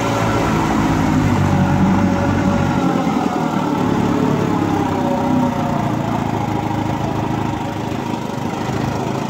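1967 Evinrude Fastwin 18 hp two-cylinder two-stroke outboard motor running steadily with the boat under way. Its note and level ease down slightly in the second half.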